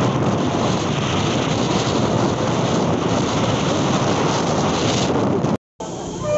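Wind buffeting the microphone: a loud, steady rushing. It cuts off abruptly near the end and a much quieter background follows.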